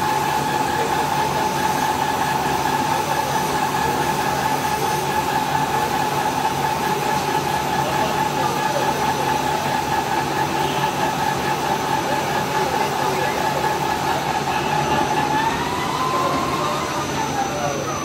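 CNC lathe turning a part under a coolant spray: a steady whine from the spindle drive over a hiss of coolant and cutting. Near the end the whine bends up and then drops away as the spindle slows toward a stop.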